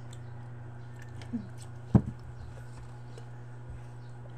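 Quiet sounds of people eating orange slices: faint scattered mouth clicks, and one sharp knock about two seconds in, over a steady low hum.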